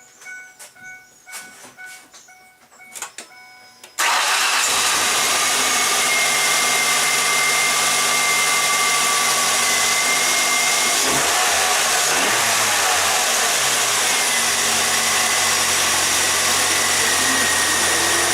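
A 2003 Ford Ranger's 2.3-litre four-cylinder engine starts about four seconds in and then runs steadily, with a short dip and rise in engine speed about halfway through. It runs evenly: the dead miss is gone after a new ignition coil, plug wires and spark plugs. A few quiet clicks come before it starts.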